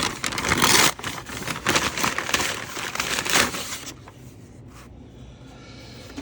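Packaging being handled and opened: crinkling, scraping and tearing noises in quick bursts, dying down after about four seconds.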